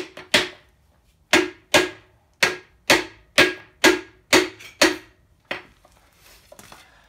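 Repeated hammer strikes, about two a second with a short metallic ring after each, driving a piston and connecting rod out of a cylinder bore of a 7.3 IDI diesel engine block. The blows stop about five and a half seconds in.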